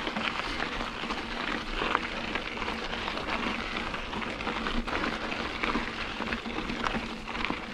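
Diamondback Recoil mountain bike rolling along a dirt trail: tyres crunching over the ground and the bike rattling, a steady crackle full of small clicks and knocks.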